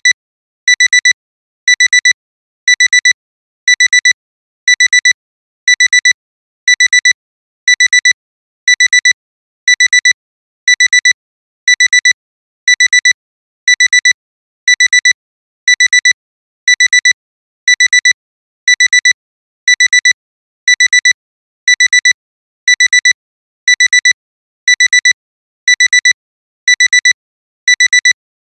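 Digital alarm clock alarm beeping: a high electronic beep in quick bursts of four, repeating about once a second. It is the signal that the timer has run out.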